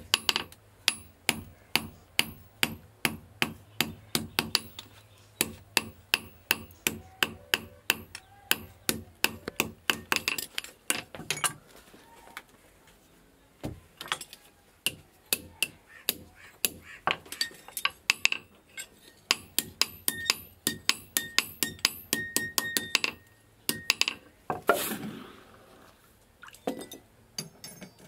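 Hand hammer forging an iron axe head on a steel block anvil: quick, sharp metallic blows at about three to four a second. There is a short pause about halfway, then the hammering resumes.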